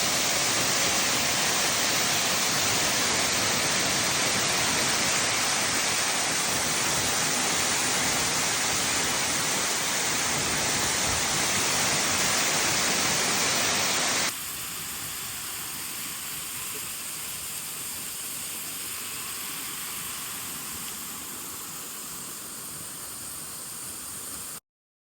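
Waterfall rushing, a steady loud roar of falling water. About fourteen seconds in it cuts abruptly to a quieter, thinner rush of water, which stops suddenly near the end.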